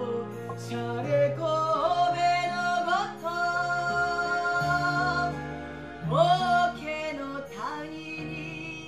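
A woman singing a theatre song over instrumental accompaniment. She holds long notes.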